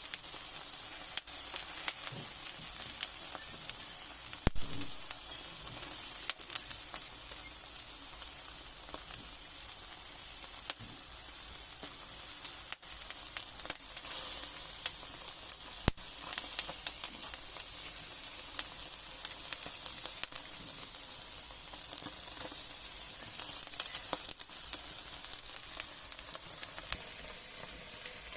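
Sardines sizzling on a grill: a steady hiss with frequent small crackles and pops, and a sharper knock about four seconds in.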